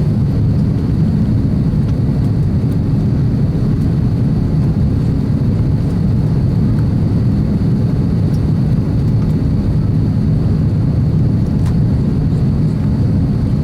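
Steady rumble of jet engines and airflow inside the cabin of an Airbus A350-1000 airliner in flight, with a faint high steady whine above it.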